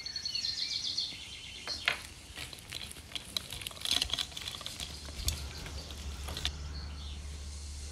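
Wire whisk beating cake batter in a glass bowl: quick clinks and scrapes of the wires against the glass, stopping about six and a half seconds in.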